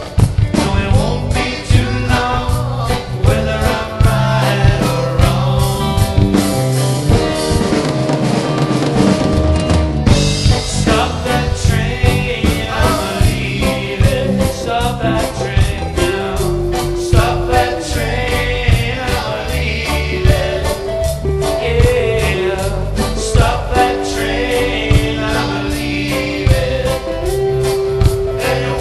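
Live band playing a reggae song on electric guitars, bass, drum kit and percussion, with a steady beat.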